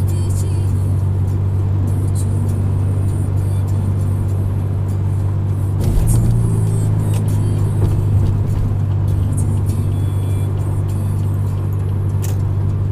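Steady road and engine drone inside a car cruising on the highway at about 70 mph, with a brief jolt about six seconds in.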